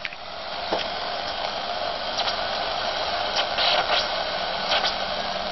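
Steady hiss from a home-built regenerative VHF airband receiver's speaker, tuned between stations, with scattered clicks as the knob of its brass variable tuning capacitor is turned by hand.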